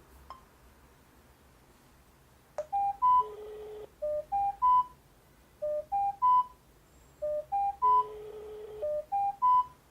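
X9 GSM alarm panel ringing for an incoming call: an electronic ringtone of three quick rising beeps, repeated over and over, some groups ending in a longer, lower note. It starts a couple of seconds after the number is dialled.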